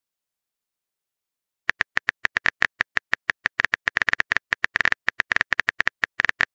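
Keyboard typing sound effect of a texting app: a rapid, irregular run of short clicks, one per letter as a message is typed out, starting about a second and a half in.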